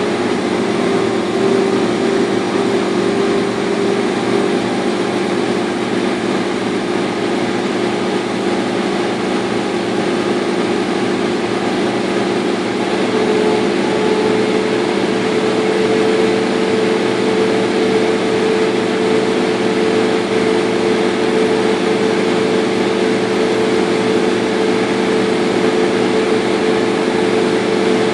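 Laser cutter running while it cuts half-inch birch: a loud, steady machine drone with several held hum tones, one of which steps slightly higher about 13 seconds in.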